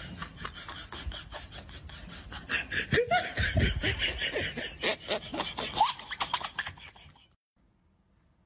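Laughter in quick rhythmic bursts, louder from about two and a half seconds in, cutting off abruptly about seven seconds in.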